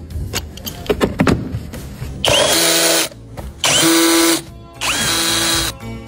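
Power tool, such as a drill or impact driver, run in three short bursts, spinning up at the start of each, after a couple of seconds of light tool clicks and knocks.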